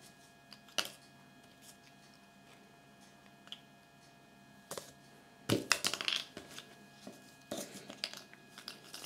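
Small hard-plastic Kinder Surprise toy figurine being handled and fitted together: a single click about a second in, then two bursts of quick plastic clicking and rattling, in the middle and near the end.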